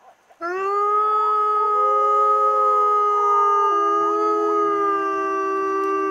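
Gray wolves howling in chorus: several long, overlapping howls at different pitches start about half a second in and are held, with short rising yips woven through and one voice dropping lower midway. The howling is set off by the zoo's public-address announcement.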